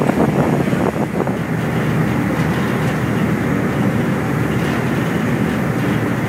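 Car ferry under way: its engine gives a loud, steady rumble mixed with rushing noise.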